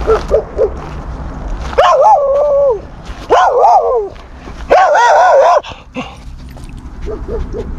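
A dog whining and yelping: three long, wavering high whines of about a second each, with short yips near the start and again near the end.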